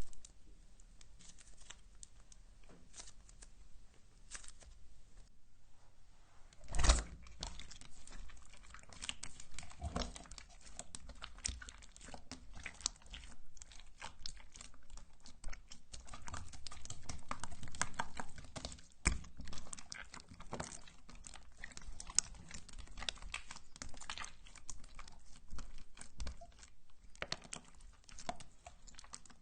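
Hands squishing and stretching slime: a steady stream of sticky clicks, crackles and small pops, with one loud pop about seven seconds in.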